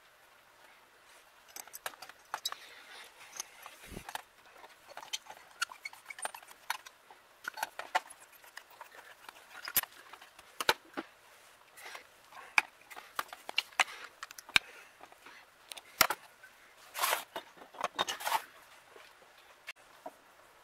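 Scattered light metal clicks and taps from a screwdriver and the cast throttle body and float bowl of a Rochester Model B carburetor being handled and screwed together on a steel workbench, with a couple of louder clatters near the end.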